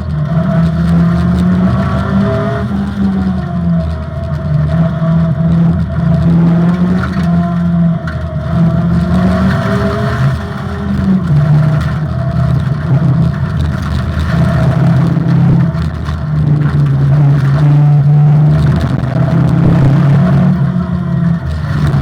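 Opel Manta rally car's engine pulling hard under acceleration. Its pitch climbs, then drops at each gear change, again and again.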